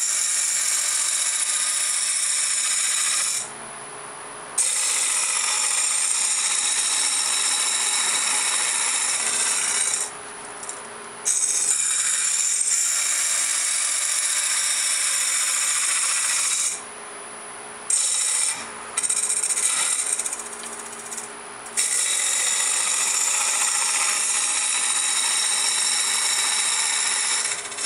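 A turning tool cuts into a spinning sumac blank on a wood lathe during rough turning of a sphere, making a steady scraping cut. The cut stops for about a second four or five times as the tool comes off the wood, and a faint lathe hum carries on underneath.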